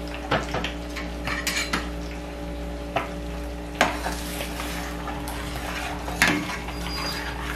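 A metal spoon stirs red chile sauce as it fries in a stainless steel pan. The spoon scrapes and gives several sharp clinks against the pan over a steady sizzle and low hum.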